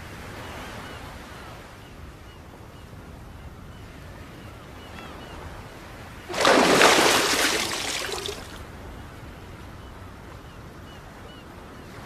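Steady wash of sea surf on a beach, with a few faint high chirps. About six seconds in, a sudden loud rush of noise, the loudest sound here, fades away over about two seconds.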